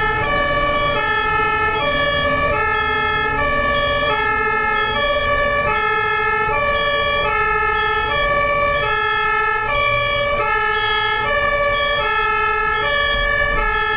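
German ambulance's two-tone siren, alternating evenly between a high and a low pitch, each held for under a second, over the low rumble of road traffic.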